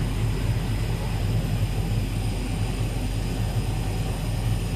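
Double-head 130 W CO2 laser cutting machine running as it cuts PVC tarpaulin: a steady machine hum with a low fluttering drone and faint steady high whines.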